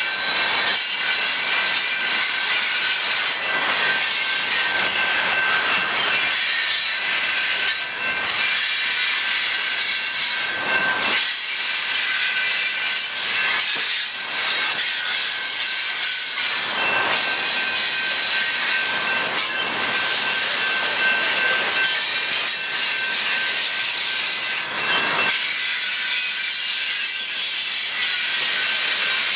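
Loaded coal hopper cars rolling past: steel wheels on rail make a steady, harsh scraping with thin squealing tones running through it, dipping briefly now and then.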